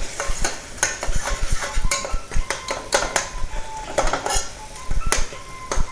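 Metal spatula stirring and scraping masala in an aluminium pressure cooker: irregular clinks and scrapes of metal on metal against the pot's sides and base.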